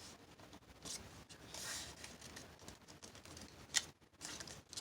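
Paper strips being handled and folded in half, with soft rustling and a few sharp crisp clicks near the end as the fold is pressed.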